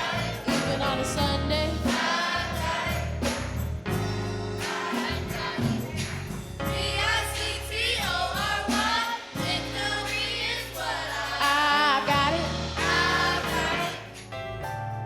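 Church choir singing a gospel song over an instrumental backing with a steady bass; the voices drop out near the end, leaving the instruments playing.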